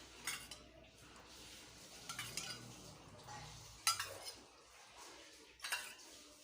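A metal spoon clinking against steel kitchen utensils a handful of times, spaced a second or two apart, while milk and food colour are mixed and added to the biryani.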